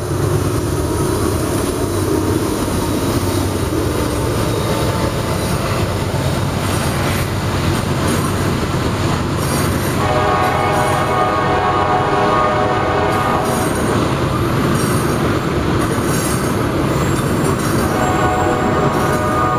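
Loaded coal train rolling past: a GE diesel locomotive rumbling by at the start, then loaded coal gondolas with steady wheel-on-rail noise. Flat high-pitched wheel squeal rises out of it about ten seconds in for a few seconds, and again near the end.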